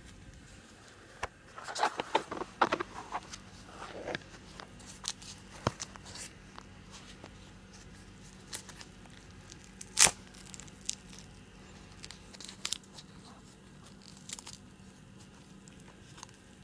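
Wrapping on a surprise toy egg being torn and crinkled by hand, in scattered crackles that are densest early on. One louder, sharp crack comes about ten seconds in.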